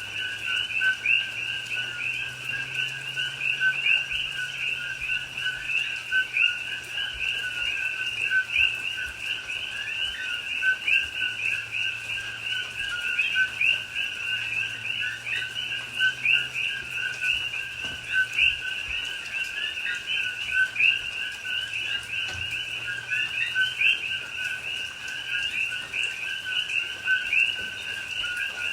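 Chorus of coqui frogs, many overlapping two-note "co-qui" calls, the second note rising higher, repeating steadily with no gaps.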